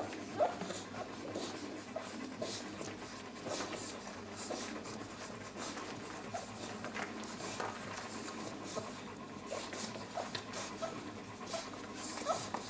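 Great Pyrenees mother dog panting in a steady rhythm, with short squeaks and suckling noises from her three-week-old nursing puppies.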